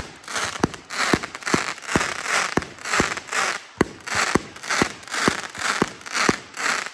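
Consumer fireworks cake firing shot after shot, about two a second, each sharp launch thump followed by a short rush of hiss as its gold bursts break.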